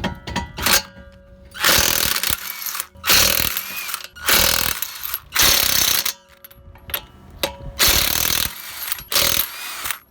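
Impact wrench hammering in about six short bursts, each roughly half a second to a second long, working bolts on a car's front wheel during a brake job.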